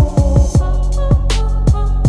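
Background music with a steady beat: deep drum hits that drop quickly in pitch over a sustained bass, with melodic tones above.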